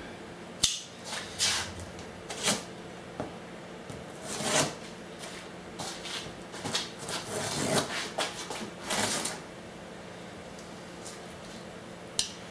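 A cardboard shipping box being opened and its packing paper rustled: a sharp snap just under a second in, then a run of short rustling and scraping swishes for about eight seconds.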